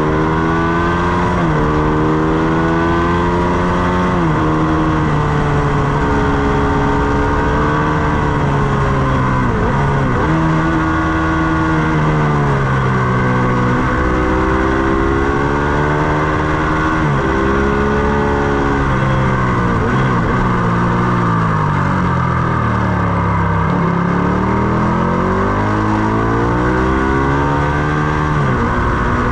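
Ducati Panigale 899's V-twin engine at speed on a race track, climbing in pitch through the gears with several sudden drops at upshifts, falling in pitch for a long stretch about two-thirds through as it slows for a corner, then pulling hard again, over a steady rush of wind noise.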